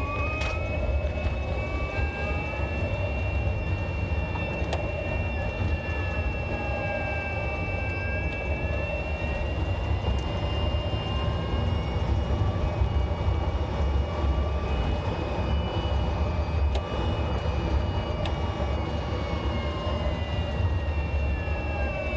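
Nissan Leaf EM57 electric motor and reduction gear whining while driving, several thin tones slowly rising and falling in pitch with speed over a steady low road rumble. A few faint clicks come through, knocks that the owner suspects come from worn motor mounts.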